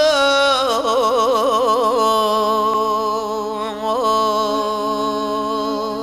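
Turkish folk song: a long held sung note, wavering in vibrato for the first seconds and then held steady with one brief ornament, over a steady accompanying tone.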